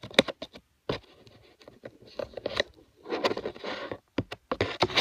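Packaging being handled during an unboxing: scraping and rustling with irregular sharp clicks and knocks, busiest about three seconds in.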